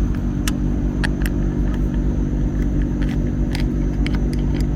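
A steady, loud, low motor hum runs throughout, with a handful of short, light clicks and taps scattered over it, as from hand tools working on parts.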